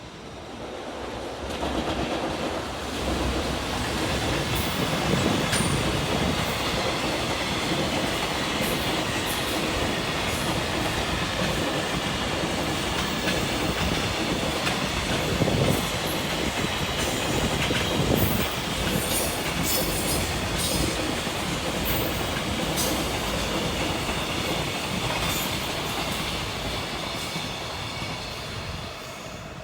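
A long electric freight train passing close by, its wagon wheels clattering steadily over the rail joints. Sharp high clicks and brief squeals from the wheels come through in the second half, and the sound fades near the end.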